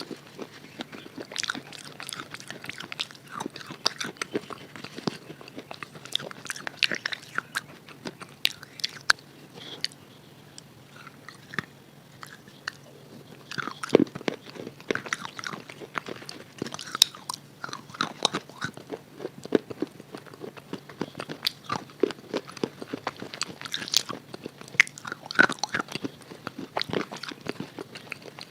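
Close-up crunching and chewing of a hard red chalk bar coated in red chalk paste: repeated sharp bites and crackles, easing off for a few seconds about a third of the way through, then picking up again.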